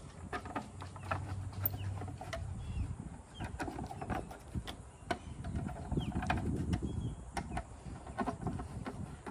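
Screwdriver working the screws of a metal boat-lift control-box faceplate: scattered small clicks and taps of metal on metal, with handling noise.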